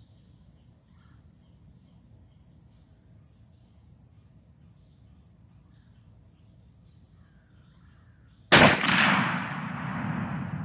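A single .30-30 rifle shot from a Mossberg 4725 lever-action about eight and a half seconds in, followed by a long rolling echo that dies away over about two seconds. Before the shot, only faint insects chirring.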